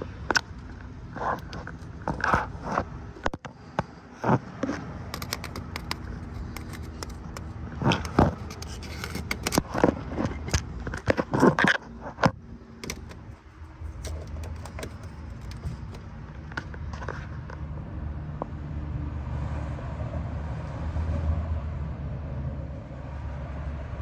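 Irregular scraping and sharp clicks from work around a spark plug tube on an engine's valve cover, busiest in the first half. After that a low steady rumble takes over.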